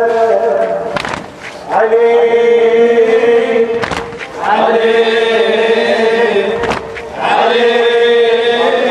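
Male chanting of an Arabic religious poem in long held notes, with short breaths about a second, four seconds and seven seconds in.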